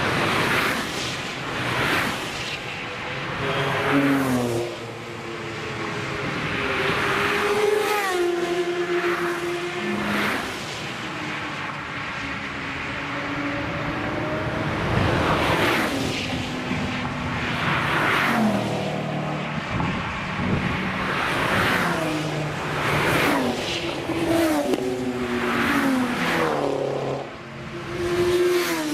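A stream of sports cars and a motorcycle passing at speed one after another, each engine swelling as it approaches, then changing note and dropping in pitch as it goes by. The pass-bys come every couple of seconds, with a motorcycle near the end.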